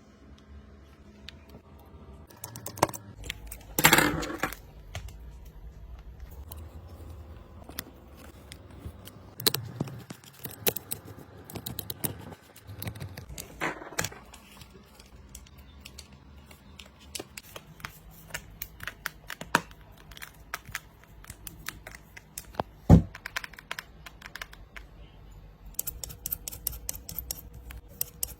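Small tools and phone parts being handled close up during a phone screen repair: scattered light clicks, taps and scrapes, a few louder knocks, and a fast run of small high clicks near the end.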